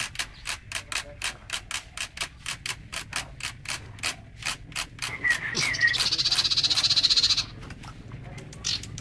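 Caged sirpu songbird singing: a long run of sharp ticking notes, about three to four a second, broken around the middle by a few whistled falling notes and then a fast buzzy trill lasting about a second and a half, with one short note near the end.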